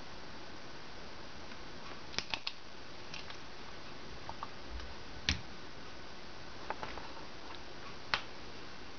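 Steady background hiss with a handful of light, sharp clicks and taps scattered through it: three in quick succession a couple of seconds in, the loudest about halfway through, and another near the end.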